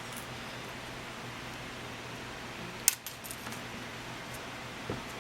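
Steady hiss with one sharp click about three seconds in and a few faint ticks after it: small hard objects being handled.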